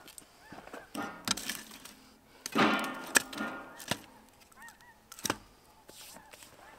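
Distant wild animal calls, short arched honking cries repeated several times, over sharp knocks of wood being handled at a campfire ring; the loudest moment comes about three seconds in.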